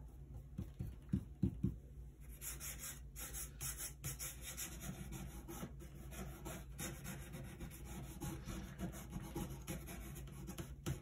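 Stiff-bristled 1-inch flat brush scrubbing oil paint onto a rough, gessoed wooden panel: a dry, rasping rub made of many quick repeated strokes, with a few sharper strokes about a second in.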